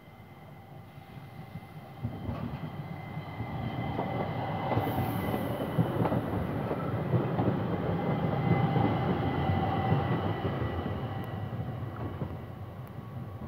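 An S-Bahn electric multiple unit passes close by on the rails. Its rumble builds over the first few seconds, is loudest in the middle, then fades as it goes away.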